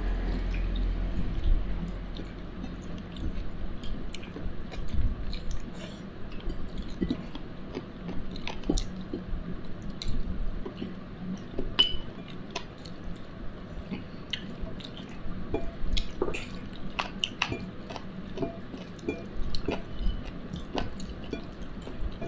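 A person chewing and biting chicken close to the microphone, with many small, irregular wet clicks of lips and mouth throughout.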